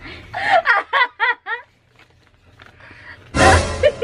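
People laughing: a run of quick repeated laughs in the first second and a half, then a loud burst of laughter near the end.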